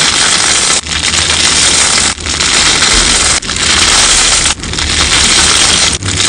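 Crunchy sponge slime being squeezed and pressed by hand, giving a loud, dense crackling. It comes in repeated squeezes a little over a second apart, with a brief break between each.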